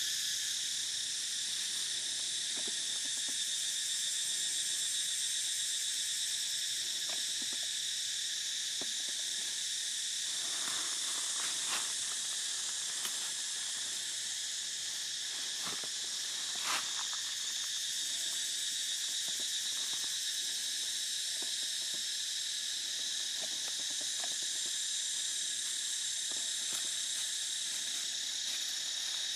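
Steady forest insect chorus: an unbroken high-pitched shrill drone, with a few faint short clicks in the middle.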